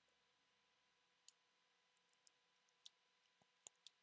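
Near silence, broken by about half a dozen faint, scattered clicks from a computer mouse and keyboard.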